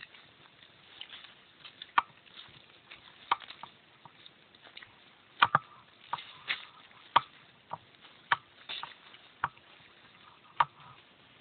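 A series of sharp, irregular clicks and knocks, about one a second, over quiet background noise.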